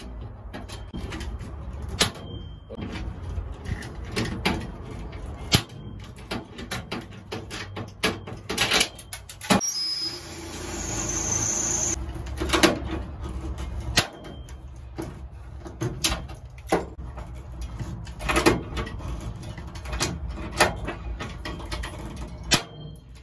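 A hand pop rivet gun being squeezed to set pop rivets through aluminum angle, with sharp pops as the mandrels snap and clinks of the metal being handled, about a dozen in all. A steady whir lasts about two seconds near the middle.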